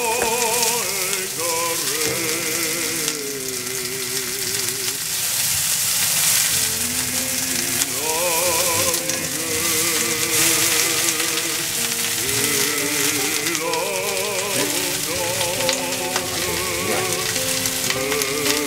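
Background music with wavering held notes over the steady sizzle of komatsuna, chikuwa and fried tofu stir-frying in a frying pan.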